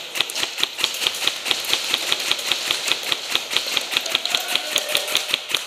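Airsoft gun firing a long rapid string of shots, about nine sharp cracks a second, which stops just before the end.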